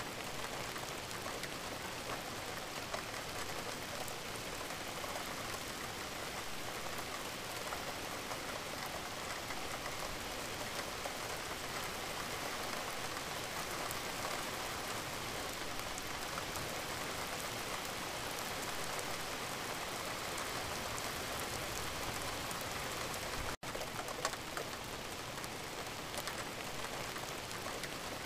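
Added rain sound track: steady falling rain, an even hiss with faint scattered drop ticks. It drops out for an instant about three-quarters of the way through.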